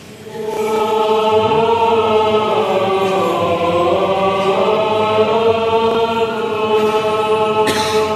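Orthodox liturgical choir chanting, several voices singing together over a held low note; the singing comes in about half a second in. A short sharp sound cuts through near the end.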